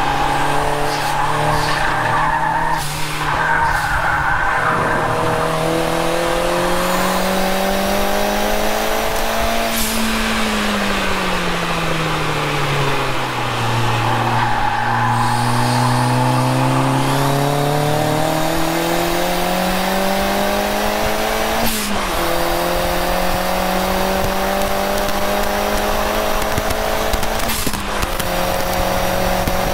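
Turbocharged Mazda MX-5's four-cylinder engine at full load on track, heard from inside the cabin. Its revs climb, fall away about ten seconds in as the car slows for a corner, then build again. Two sharp breaks in the second half mark gear changes.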